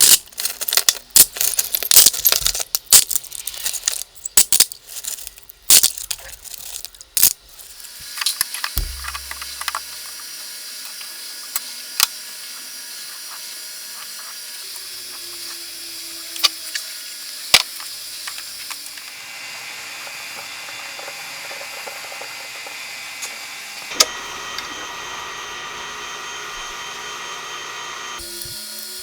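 Metal parts and tools clinking and clattering in quick, irregular knocks for several seconds, then a steady high hiss with a few sharp clicks over it.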